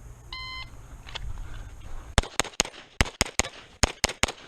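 Shot timer's start beep, then about two seconds later 9mm pistol fire from a Beretta 92 Elite LTT: three quick strings of three shots, one string per target.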